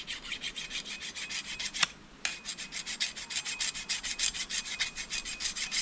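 A machete blade being sharpened with quick, even rasping strokes, several a second, with a brief pause about two seconds in.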